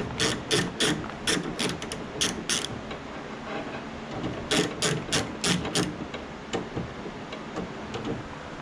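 Hand ratchet clicking as it is swung back and forth, loosening a door-handle bolt: an even run of clicks about three a second, a pause, then a second shorter run.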